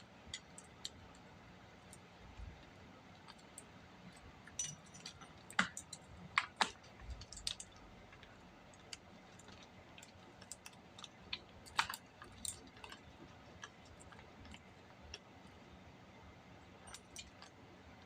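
Scattered light clicks and clinks as the 8-inch chain and guide bar of a 20-volt Bauer pole saw are handled and seated on the drive sprocket and chain adjuster, with a cluster of sharper clicks about five to seven seconds in.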